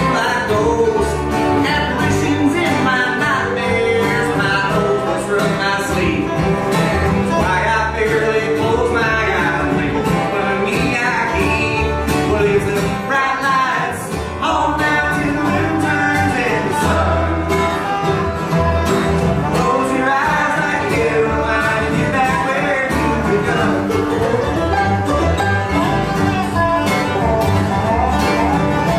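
Live bluegrass band playing acoustic string music on fiddle, banjo, acoustic guitar, mandolin and upright bass.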